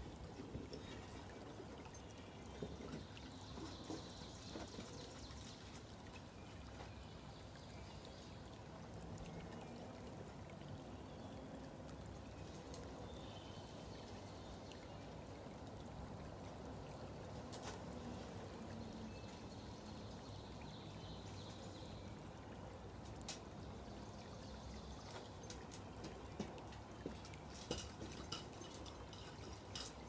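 Molten aluminium poured from a crucible into ingot moulds: a quiet trickling pour over a faint steady hiss, with a few short faint clicks in the second half.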